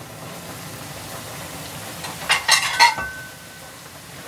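Ramen cooking in a small metal pot on a stove with a steady low hiss as the noodles are stirred with chopsticks. About two and a half seconds in comes a quick run of three or four clinks against the pot, followed by a brief ringing tone.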